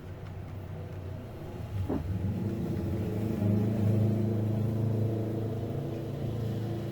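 A motor vehicle's engine running, a low steady hum that swells about two seconds in and stays loud.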